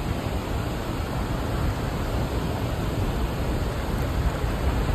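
Steady rushing of water from a small stream spilling over a little waterfall.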